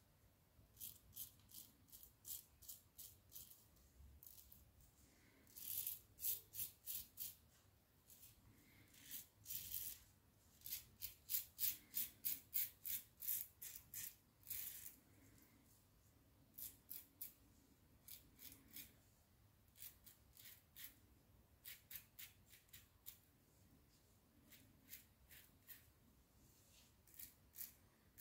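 Laugar skogsrå safety razor shaving beard stubble: short crackly scraping strokes in runs of about two a second, with pauses between the runs.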